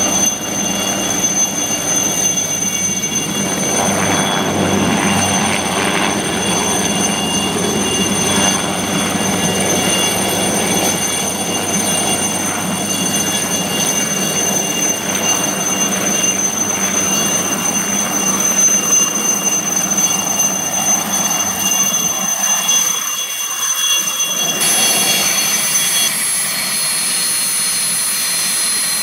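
Aérospatiale SA 315B Lama helicopter's Turbomeca Artouste IIIB1 turboshaft running with a steady high-pitched turbine whine over broad rotor noise as it hovers low and comes down to land. The whine's pitch changes abruptly about 25 seconds in.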